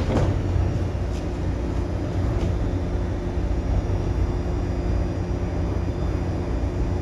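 Steady low drone of a ship's running machinery heard inside the wheelhouse, several even hum tones, with two faint clicks about one and two and a half seconds in.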